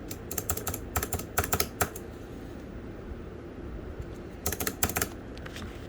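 Computer keyboard key fitted with a tambourine keycap being pressed repeatedly: two quick runs of clicks, the second about four and a half seconds in, with the keycap's small metal jingles rattling on each press.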